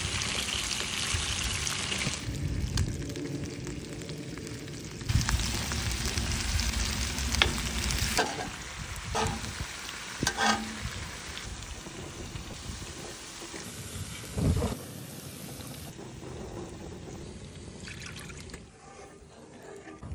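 Chicken thighs sizzling in hot oil in a cast-iron skillet, with a few sharp clicks and knocks along the way.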